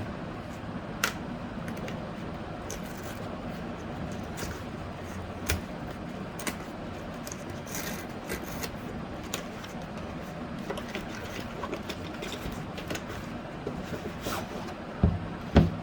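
Packaging being handled as a sealed GoPro Hero 10 box is opened: scattered light clicks, scrapes and rubbing of cardboard and plastic over a steady background hum. A couple of louder knocks come near the end.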